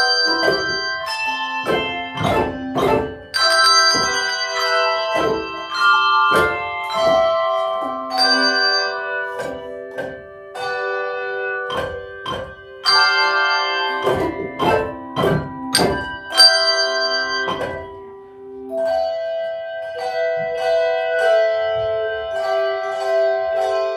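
Handbell choir playing a piece: struck bell notes that ring on and overlap, several bells sounding together in chords. Near the end the bells are struck less often and the notes are held longer.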